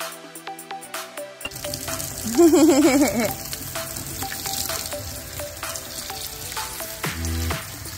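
Steady hiss of spraying water over background music. A couple of seconds in, a small child makes a wavering, warbling vocal sound for about a second.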